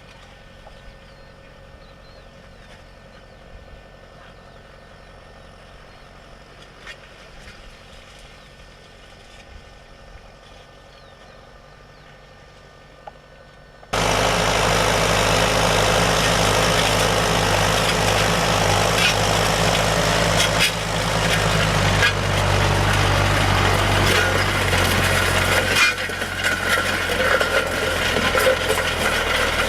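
Tractor engine running: faint and steady at first, then after a sudden jump about halfway through, loud and close with a steady low hum and a rough, noisy clatter.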